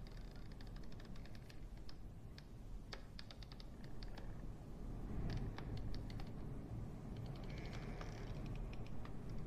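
Faint clusters of rapid little clicks that come and go several times over a steady low hum.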